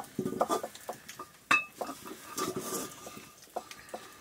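Metal serving spoon clinking and scraping against a metal pot and steel plates as rice is dished out: a run of small knocks, with one sharper ringing clink about one and a half seconds in.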